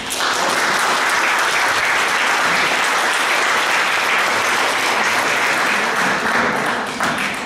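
Audience applause, a steady dense clapping that starts at once and eases off near the end.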